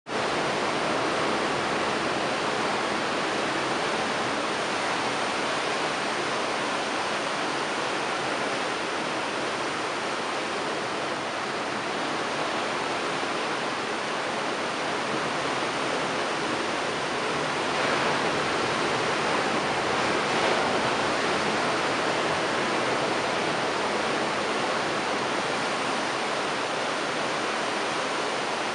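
Ocean surf breaking and washing over a rocky shoreline: a steady rush of white water that swells a little louder about two-thirds of the way through.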